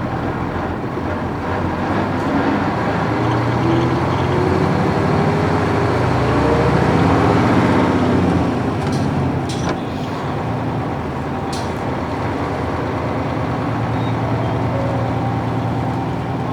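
Nissan Diesel UA440 city bus's PF6 diesel engine under way, rising in pitch as it pulls for several seconds. It drops back suddenly a little before halfway and then runs steadily. A few short ticks are heard around the middle.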